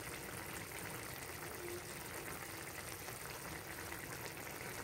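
Fish steaks and cherry tomatoes simmering in a wok of thin tomato-chilli sauce, a steady bubbling.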